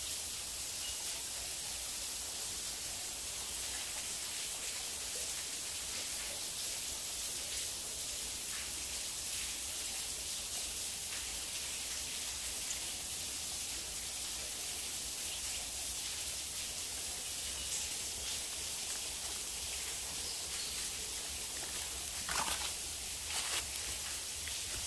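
Forest ambience: a steady high hiss, with a few faint short chirps early on from a bird, and a handful of louder clicks or crunches near the end.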